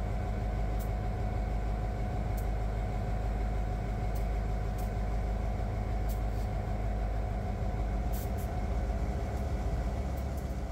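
Union Pacific GP38-2 diesel locomotives running steadily while they push snow spreaders: a deep, even engine rumble with a steady humming tone and a few faint ticks, starting to fade out near the end.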